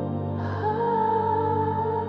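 Instrumental intro of a soft electronic worship song: sustained chords over a steady bass, with a high held melody note coming in about half a second in.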